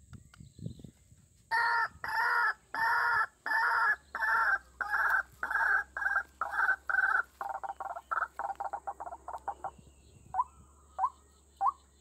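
White-breasted waterhen (ruak-ruak) calling: a run of loud repeated calls, about two a second, that speed up into quick short notes, then give way to single short downward-sliding notes spaced well apart. A few low thumps come just before the calling starts.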